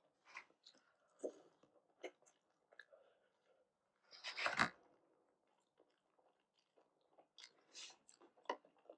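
A person chewing dumplings with soup, mostly quiet mouth clicks and wet eating sounds, with one louder, longer eating sound about four and a half seconds in.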